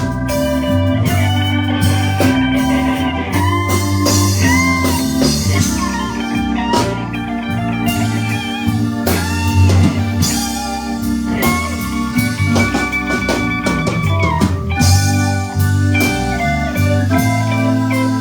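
Live blues band playing an instrumental break in a slow blues: lead guitar with bending notes over bass and drum kit.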